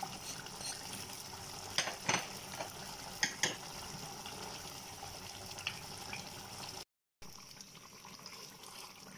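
Chicken in masala sizzling in an earthenware handi while a wooden spoon stirs it, knocking against the clay pot a few times about two and three and a half seconds in. The sound cuts out briefly near the end, then the sizzling goes on more quietly.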